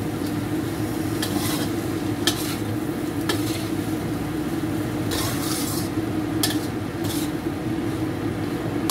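Spatula scraping and tossing diced potatoes in chilli sauce around a wok, with a light sizzle of frying; the scrapes come at uneven intervals, roughly one a second, over a steady low hum. The dish is already cooked and is being fried on so the spice paste soaks in.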